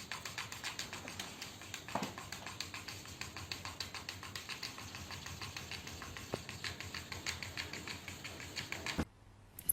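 Rapid, irregular tapping clicks, several a second, that stop suddenly about nine seconds in.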